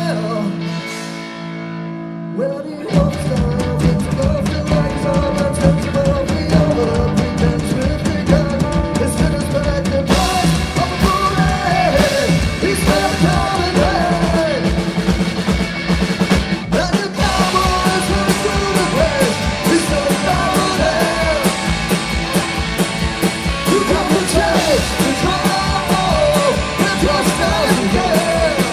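Live rock band playing: a quieter held chord for the first few seconds, then drums and the full band come in loudly about three seconds in and play on with a steady beat and a wavering melody line.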